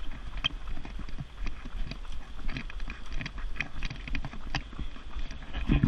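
Running footsteps striking a paved path in a steady rhythm, about two footfalls a second, over a steady low rumble.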